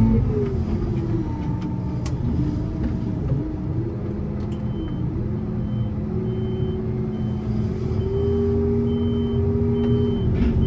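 Farm loader's engine running, its pitch shifting a little with the revs. From about halfway in, a reversing alarm beeps steadily, about one and a half beeps a second, as the machine backs up.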